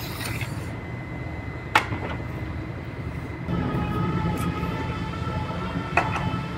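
Steady low shop drone; about three and a half seconds in, a machine whine with several steady pitches starts up and holds. Two sharp clicks, about four seconds apart, come from a metal tram gauge being handled and set against the car's front structure.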